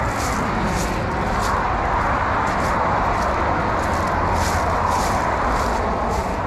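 Steady traffic noise from cars on a multi-lane highway, with faint footsteps on a dirt path about twice a second.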